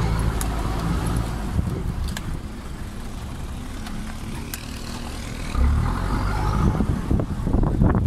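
Toyota BJ40's four-cylinder diesel engine running as the 4x4 drives along a rough rocky track, revving up about five and a half seconds in, with a few scattered knocks.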